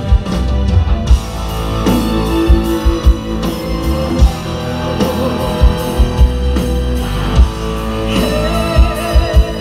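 Live rock band playing: electric guitar over drums, with repeated heavy kick-drum hits, loud through the stage sound system.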